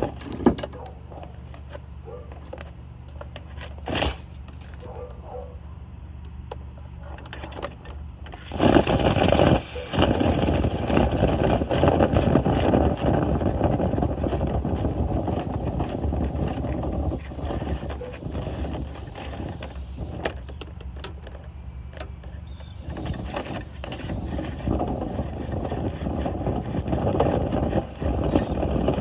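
A motor-driven machine running with a loud rush of air. It comes in strongly about eight seconds in, eases off briefly past the twenty-second mark, then builds again.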